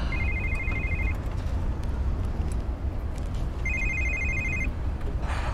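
Mobile phone ringing with a fast-trilling electronic ring, two rings of about a second each, over the low steady rumble of the car's cabin. A short rustle comes near the end.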